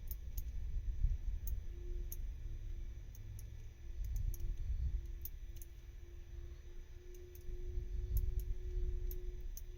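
Small, irregular clicks of a combination padlock's number wheels being turned notch by notch while the shackle is pulled, as the lock is decoded by feeling for the binding wheel. There is a low rumble underneath.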